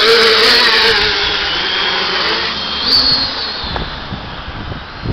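Electric quadcopter's propellers and motors whining as it lifts off and climbs away, the whine fading as it rises. Wind buffets the microphone in the last second or so.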